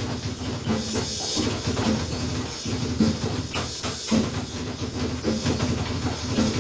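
Drum kit being played: a fast, even stream of low drum strokes under heavier hits about once a second, with a constant cymbal wash.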